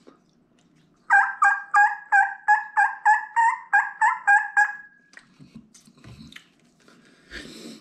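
Mouth diaphragm turkey call blown in a series of about a dozen hen yelps, roughly three a second, each note breaking from a higher to a lower tone. The last note is held a little longer. Faint handling clicks follow.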